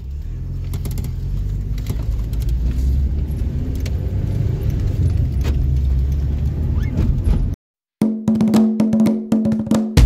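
Car cabin noise while driving on a highway: a steady low rumble of engine and tyres. It cuts off abruptly about seven and a half seconds in, and after a brief silence music with percussive beats begins.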